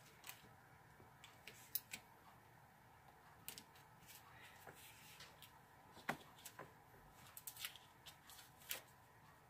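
Faint, irregular clicks and short rustles of hands handling and adjusting pleated, plastic-coated mask fabric on a cutting mat.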